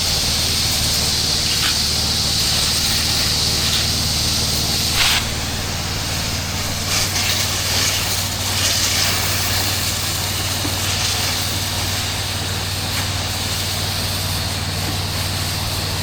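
Mo Flo soft wash system spraying: its engine-driven pump runs steadily under the loud hiss of cleaning solution jetting from the nozzle. The spray hiss eases slightly about five seconds in.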